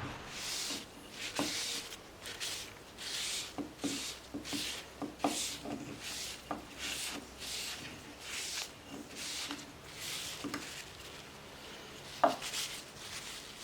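Repeated rubbing strokes on wood by hand, about one and a half strokes a second, with a few light knocks, one louder near the end.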